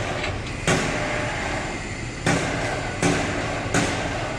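Four sharp knocks at uneven intervals of about a second, some ringing briefly, over a steady background din of workshop noise.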